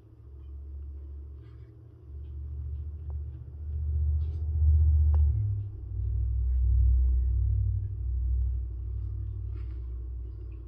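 Low, uneven rumble on the phone's microphone, swelling louder through the middle and easing near the end, with a couple of faint light clicks.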